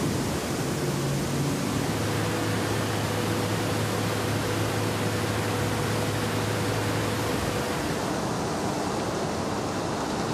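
Steady industrial noise of a hot rolling mill at work, an even rushing sound with a low hum that holds for several seconds and stops past the middle.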